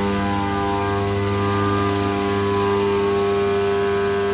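Haas CNC mill cutting billet aluminium on a light facing pass across the top of the part, a steady whine made of several held tones from the spindle and cutter.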